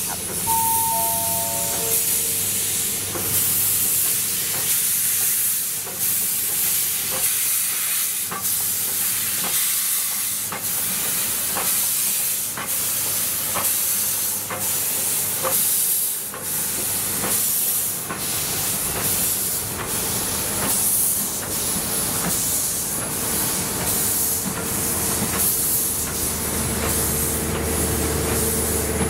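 Oil-fired steam locomotives, No 824 and No 850 running back to back, rolling slowly past with a loud, steady steam hiss and a regular exhaust chuff about once a second. About a second in, a short chime of four falling notes sounds; near the end a steady low hum joins in as the coaches pass.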